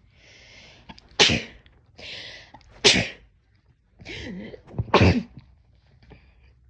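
A person sneezing three times in a row, about two seconds apart. Each sneeze is a sudden loud blast that follows a noisy intake of breath lasting about half a second.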